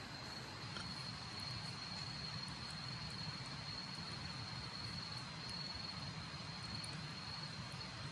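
Night insects singing in the background, a steady high-pitched trill that goes on without a break, over a faint low rumble of outdoor ambience.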